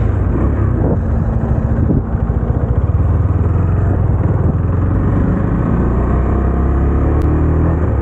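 KTM motorcycle engine running steadily under throttle as the bike pulls away and speeds up from about 20 to nearly 40 km/h, heard from the rider's seat with road noise.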